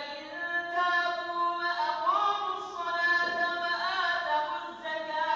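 Imam's melodic Quran recitation in Arabic: one man's voice holding long notes that bend into rising and falling ornamented turns.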